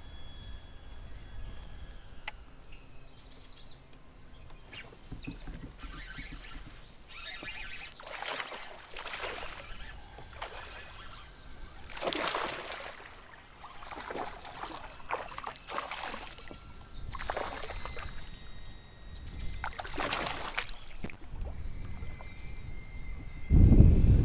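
A hooked fish splashing and thrashing at the water's surface beside a kayak several times while it is reeled in, with faint bird chirps early on. Near the end a loud low rumble sets in.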